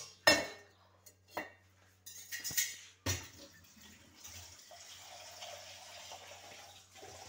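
Dishes knocking and clinking a few times, the loudest near the start, then from about four seconds in a steady stream of running water as plain tap water is measured out for dough.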